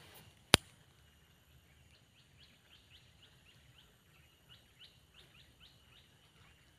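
A single sharp click about half a second in, then a bird calling with a run of short, quick chirps, each dropping in pitch, over a faint steady high tone.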